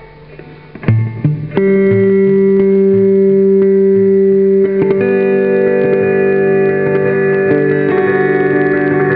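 Electric guitar played through the Siren II, a DIY tap-tempo delay pedal: a plucked note about a second in, then a chord ringing on steadily, struck again about five seconds in.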